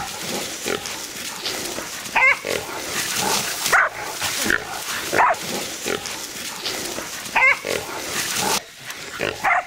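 Black and white feral boar squealing repeatedly as pig dogs bail and hold it, with dogs barking and the rustle and crash of grass and scrub close by.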